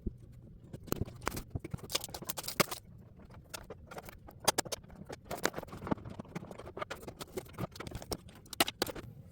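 Packaging being handled and opened to unbox a model horse: an irregular run of crinkles, rustles and sharp clicks.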